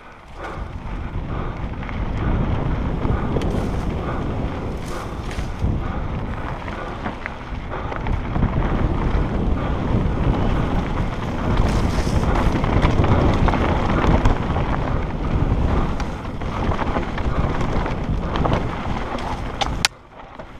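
Wind buffeting a helmet-mounted camera's microphone on a fast mountain bike descent, mixed with the rumble of the tyres on a dirt trail. It builds over the first couple of seconds, holds, then drops off sharply with a click near the end.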